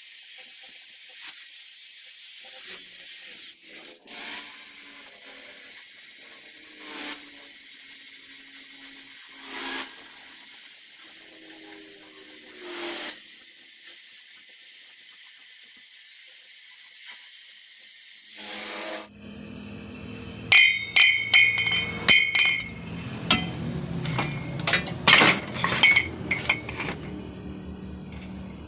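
Metalwork on a steel pipe: a loud, steady, harsh hiss with a few brief breaks, which stops about 19 seconds in and gives way to a run of sharp metal clinks and taps.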